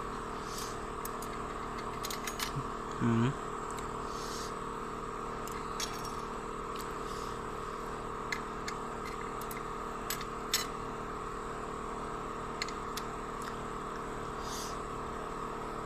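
Scattered light metallic clicks and clinks of clutch plates and a pressure plate being handled and set into an automatic transmission's clutch pack, over a steady background hum.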